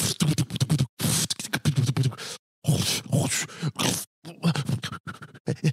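Vocal sound effects made with the mouth: a quick, beatbox-like run of clicks, puffs and hisses, broken by a few short pauses.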